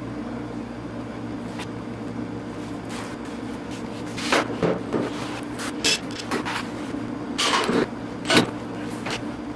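Newly hung wooden door being opened and handled: a run of latch clicks and knocks as the handle is worked and the door swings, ending in a single sharp knock near the end.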